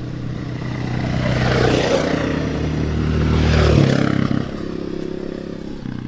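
A motor vehicle drives past close by: its engine grows louder to a peak about four seconds in, then drops in pitch and fades as it moves away.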